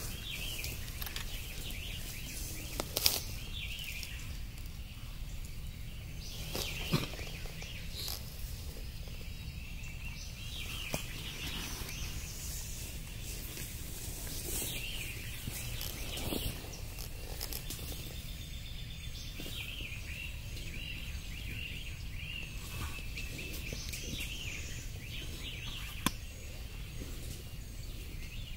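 Songbirds chirping over a steady low rumble, with a few sharp clicks scattered through.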